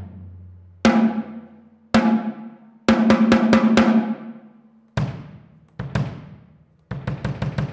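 A DDS birch drum kit played through a camera's own microphone: single tom strikes that ring out, a quick run of strokes in the middle, then deeper drum hits and a fast run near the end.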